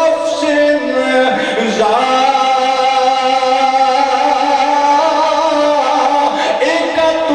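A man's voice singing a melodic recitation in long held notes, the pitch dipping and climbing back about a second and a half in.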